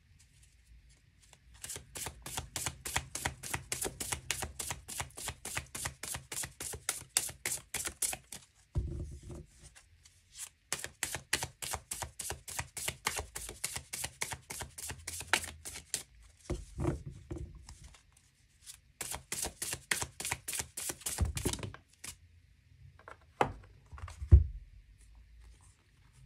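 A deck of tarot cards being shuffled by hand: three runs of quick, rapid card flicks, each several seconds long, broken by dull knocks of the deck against the table. Near the end a few cards are handled and set down, with one loud low thump about two seconds before the end.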